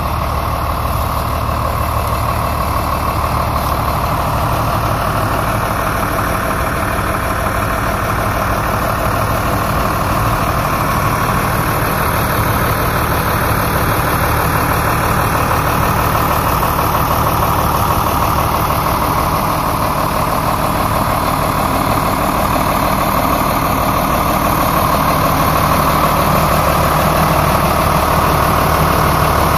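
Fendt Favorit 514 C tractor's six-cylinder turbo diesel engine idling steadily, heard close up.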